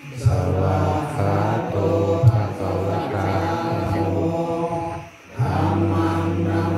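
Buddhist monks chanting Pali verses in a steady, low monotone, with a short break for breath about five seconds in.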